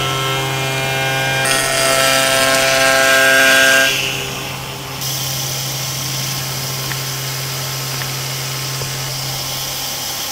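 Spindle moulder running, with a steady low hum and a high whine while the cutter shapes a curved wooden workpiece. The whine and cutting noise drop away about four seconds in, leaving the machine running steadily.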